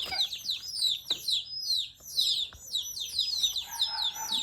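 Several baby chicks peeping continuously, with many short, high, downward-sliding peeps overlapping several times a second.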